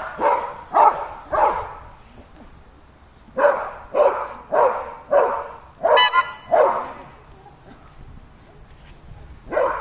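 A dog barking in short groups: three barks, a pause, a run of six, then one more near the end.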